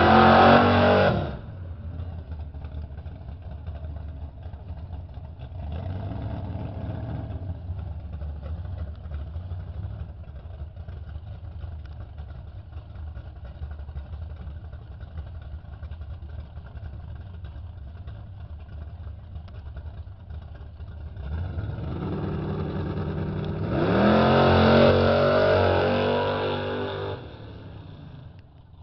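Chevrolet Nova's engine revved hard at the start, blipped briefly about six seconds in, then idling steadily before a long, loud rev in the last third that drops back near the end.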